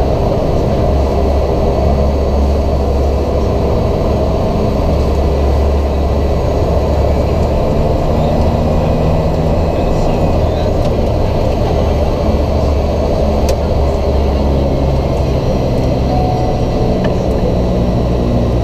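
Cessna 208B Grand Caravan EX's single Pratt & Whitney PT6A-140 turboprop engine and propeller running with a steady, loud, low hum.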